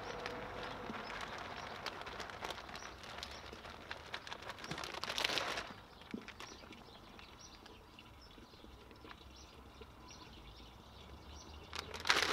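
Mushroom grain spawn pouring out of a plastic bag onto the cut top of a log, a rustling patter of grain with bag crinkle, loudest about five seconds in and stopping about six seconds in. Then quieter with faint bird chirps, and a short burst of rustling near the end.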